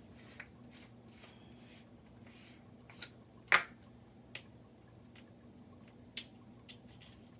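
A few light clicks and knocks of kitchen containers and utensils being handled, one sharper knock about three and a half seconds in, over a low steady hum.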